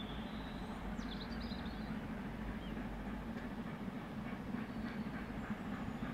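LMS Black 5 steam locomotive 45212 heard approaching in the distance while working up Parkstone bank: a steady low rumble that slowly grows louder.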